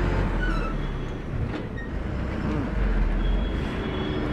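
A city bus crawling past over a rutted, muddy road, its engine running with a steady low rumble.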